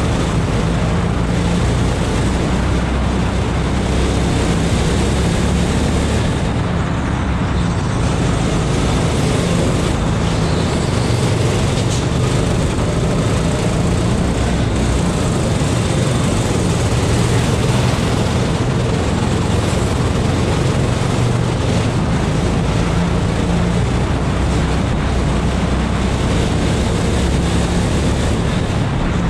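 Go-kart engine running continuously at racing speed on a lap, under a steady rush of noise.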